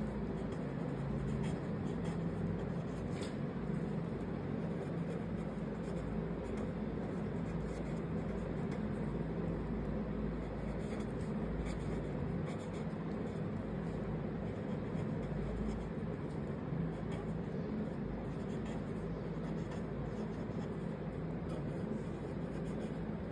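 Felt-tip pen scratching across paper in short strokes as cursive words are written by hand, over a steady low background hum.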